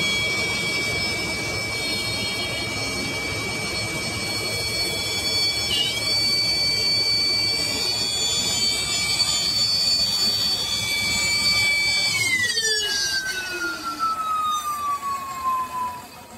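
Cummins QSB 6.7 diesel engine running with a loud, steady high-pitched whine, the abnormal sound of a turbocharger whose compressor blade and shaft are broken. About twelve seconds in, the whine falls steadily in pitch as the engine winds down.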